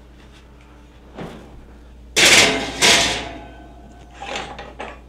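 Metal sheet pan being slid onto a lower oven rack: two loud metal-on-metal clatters about two seconds in, with a short ring after them, then a lighter clunk near the end.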